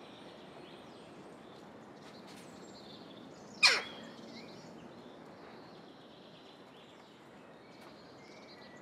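A single short, harsh jackdaw call, falling in pitch, about three and a half seconds in. Faint chirping of small birds and outdoor background noise run beneath it.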